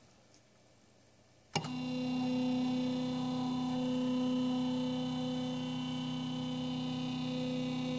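About a second and a half in, a click, then the steady whine of the CNC mill's Z-axis stepper motor under the TinyG controller, driving the endmill slowly down in its homing search toward the PCB.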